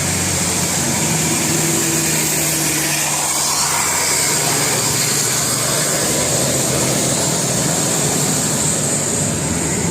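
A vehicle engine running steadily and loudly close by, with a strong hiss over a low hum and no horn tones.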